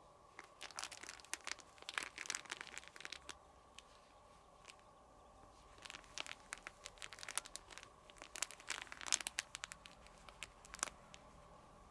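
Crinkly 'shaka-shaka' cat toy rustling and crackling as a kitten bats and grabs at it, in two bouts of quick crinkles with a short pause between them.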